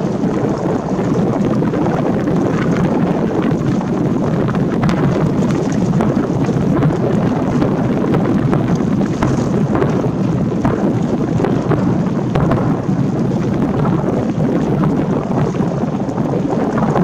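Aerial firework shells bursting in a string of booms and crackles. Heavy wind rumble fills the background because the microphone has no foam windscreen.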